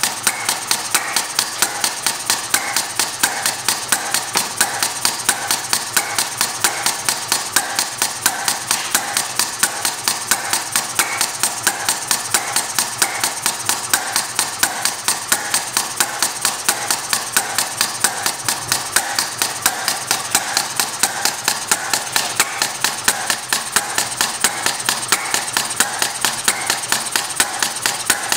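Model compressed-air hit-and-miss engine with a flyball governor, running in hit-and-miss mode. Its valve gear and latch make an even, rapid rhythm of sharp metallic clicks.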